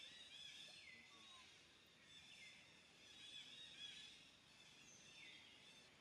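Faint, high chirping animal calls layered over one another, with a few calls gliding downward in pitch, about a second in, midway and near the end.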